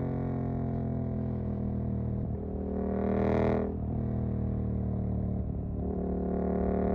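Suzuki GSX-8S parallel-twin running through an aftermarket Jeskap EVO exhaust under way, mostly a steady note. It dips briefly about two and a half and five and a half seconds in. Around three seconds it swells louder under throttle, then cuts off sharply.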